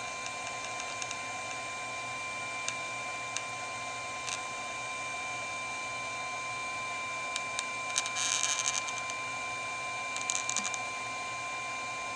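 Hot glue gun being worked over a circuit board: scattered faint clicks, with two short bursts of rapid clicking about eight and ten seconds in. A steady high-pitched whine runs underneath.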